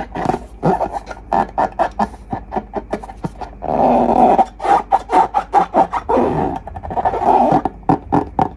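Slime being squished and squeezed: a fast, irregular run of wet clicks and pops, with two longer squelching stretches partway through.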